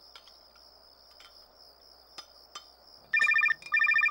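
Crickets chirping steadily with a few faint clinks, then about three seconds in a telephone starts ringing loudly with an electronic trill, two short rings back to back.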